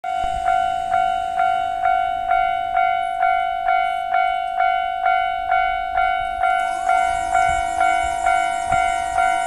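Japanese railway level-crossing warning bell ringing in evenly spaced strokes, about two a second, over a steady ringing tone: the signal that a train is approaching. About seven seconds in, a second, higher tone slides in and holds alongside it, with a faint hiss.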